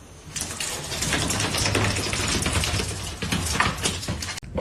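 A dense run of rapid clicks and rattling over a low hum, starting about half a second in and cutting off abruptly near the end.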